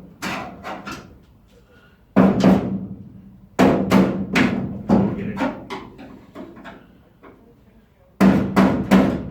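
Hammer blows knocking a steel car floor panel into place: sharp, loud strikes in groups of two to four, each with a short metallic ring, with brief pauses between the groups.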